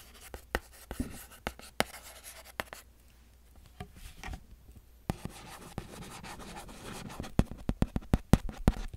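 Plastic stylus writing on a pink LCD writing tablet close to the microphone: scratchy strokes and light clicks, then a quick run of sharp taps near the end.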